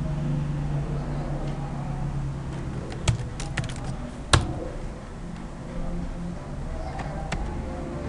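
Computer keyboard keys being pressed, a quick run of clicks about three seconds in ending in one louder click, then a few mouse or key clicks near the end, over a steady low hum.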